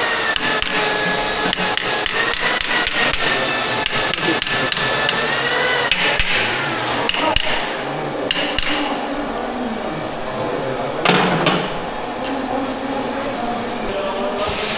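Hand hammer striking metal repeatedly: quick blows for the first few seconds, then scattered single strikes. A wavering whine runs underneath.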